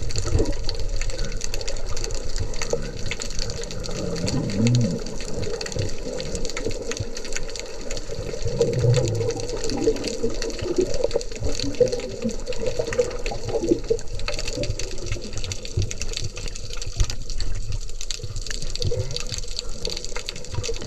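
Underwater sound picked up by a camera in its housing: a steady rush and slosh of moving water, with a few short low blips about four and nine seconds in.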